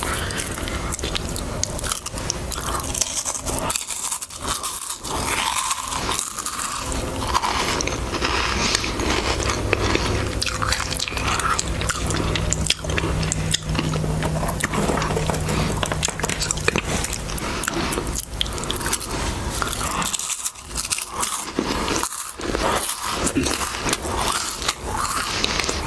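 Harvest Snaps green pea snack crisps being bitten and chewed right at the microphone: dense, crackly crunching that goes on throughout.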